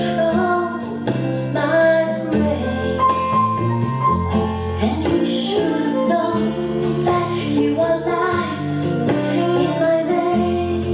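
A song with a woman singing over instrumental backing, played on an NAD 3020A integrated amplifier through Acoustic Energy Aegis Evo 3 floor-standing loudspeakers.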